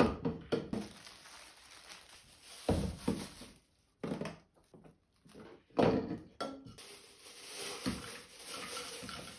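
Kitchen handling sounds: a series of separate knocks and clinks of dishes and utensils being set down and moved on a counter.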